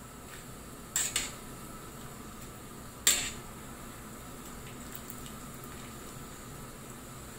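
Metal tongs clinking against a stainless steel pot while blanching cabbage leaves in boiling water: a quick double clink about a second in, and a single louder clink about three seconds in. Water sloshes and drips from the leaves as they are swished and lifted out, over a steady low hiss.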